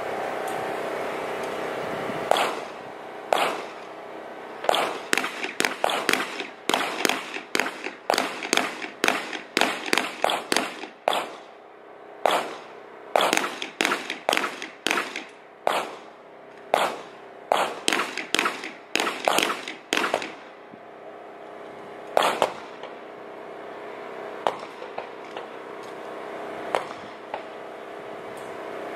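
A pistol fired in rapid strings at paper targets: about three dozen sharp shots, mostly two or three a second with brief pauses between strings, then a few single shots spaced out near the end.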